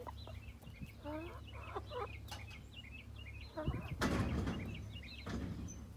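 Domestic hens clucking and chirping close by, with a couple of short, louder calls about one and two seconds in, and a brief rustle near the middle.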